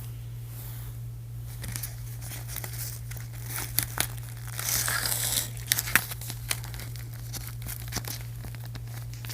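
Toy packaging being handled and pulled apart while a boxed doll is unpacked: crinkling and tearing with many small clicks, busiest near the middle, over a steady low hum.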